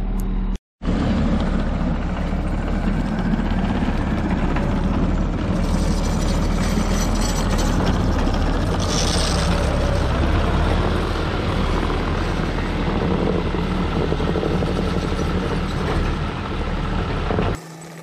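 Case TV450 compact track loader's diesel engine running steadily and close, with the broad mechanical noise of the machine working its forks. The sound drops out for a moment just under a second in and cuts off abruptly near the end.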